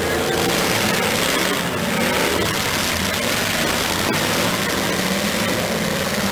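Demolition derby cars' engines running together in a steady din, with one sharp knock about four seconds in.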